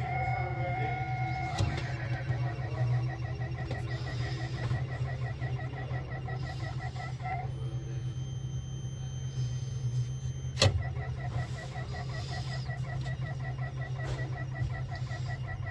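Refrigerator fan running with a steady low hum and a fast, even pulsing tick. The pulsing drops out for about three seconds partway through, then a single sharp click, and the pulsing picks up again.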